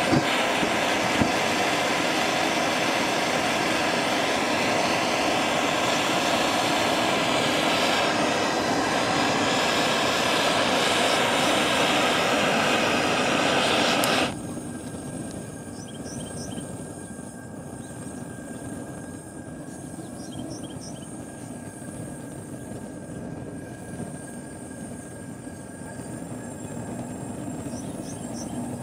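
Homemade waste-motor-oil gasifier burner alight, its flames jetting from a row of outlet holes with air blown through, making a steady loud rush: the oil vapour has reached ignition and is burning as flammable gas. About 14 seconds in the rush drops suddenly to a quieter, duller level.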